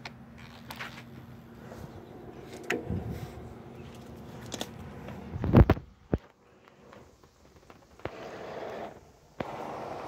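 Clicks and knocks of handling, with one loud thump about five and a half seconds in. About a second before the end, a steady mechanical running sound sets in as the Case 446 lawn tractor is being started.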